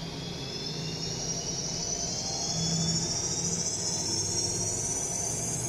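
King Canada variable-speed industrial drill press running, its high whine rising steadily in pitch as the speed dial is turned up, over a steady low hum; it sounds like a Learjet.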